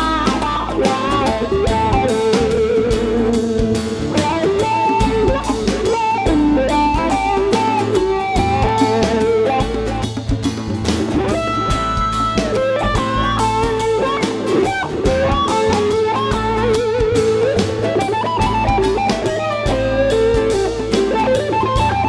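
Live band playing: electric and strummed acoustic guitars over a drum kit, with a wavering lead melody line.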